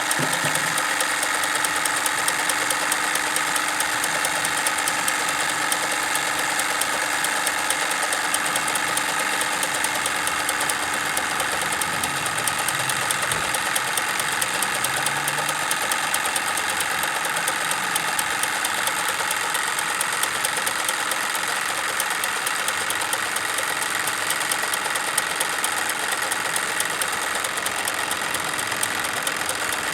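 Wilesco D22 toy live-steam engine running steadily, with a fast, even chuffing and ticking, driving a tin toy sawmill whose parts clatter along with it.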